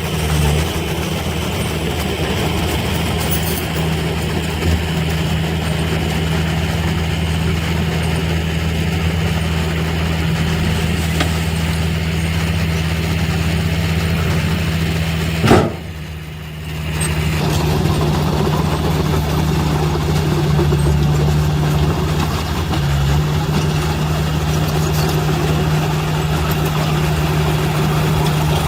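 Diesel engine of heavy earthmoving machinery running steadily at a low, even pitch. About halfway through there is a sharp click and the sound drops away for about a second before the engine is heard again.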